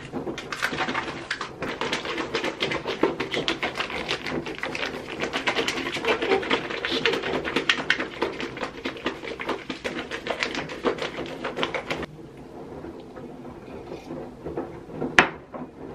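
Plastic zip bag of pancake mix and almond milk being shaken and squeezed to mix the batter: fast, continuous crinkling and rustling for about twelve seconds. Then it stops, leaving quieter room sound with a single sharp click near the end.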